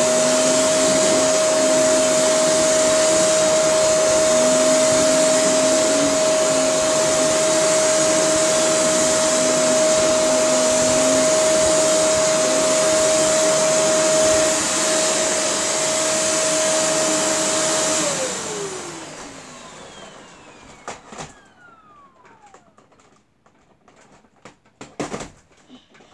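Shark Navigator Powered Lift-Away upright vacuum cleaner running at a steady whine with a strong rushing hiss. About 18 seconds in it is switched off and the motor winds down, its pitch falling over a couple of seconds. A few light clicks and knocks follow.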